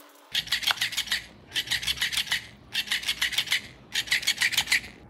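Rapid rasping scratches in four short bursts, evenly spaced, each a quick run of strokes.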